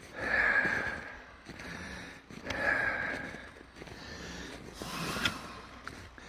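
A man breathing close to the microphone while walking in snow: three long, noisy breaths about two and a half seconds apart.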